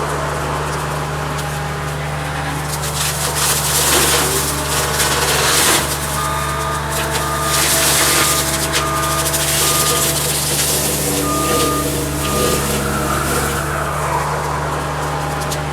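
Cat 279D skid steer's diesel engine running steadily while its brush cutter works through brush, with repeated bursts of cutting noise. A backup alarm beeps about twice a second from about six seconds in until near thirteen seconds.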